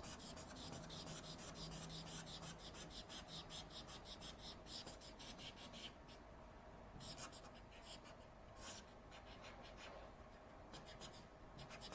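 Faint writing strokes of a pen on a touchscreen whiteboard: a quick run of small scratches and taps for the first half, then only a few scattered ones.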